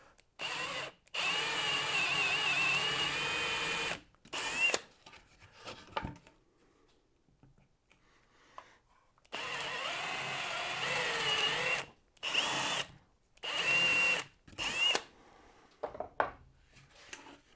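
Milwaukee cordless drill boring into plywood with a Forstner bit, its motor whining in two runs of about three seconds each, with several short trigger blips before and after.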